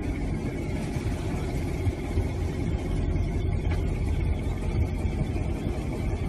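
Car engine running at an even low rumble while the car drives along, with no revving.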